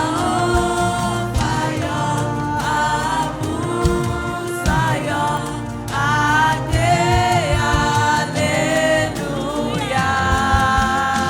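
Congregation or choir singing a gospel hymn with accompaniment, phrases held and sliding between notes.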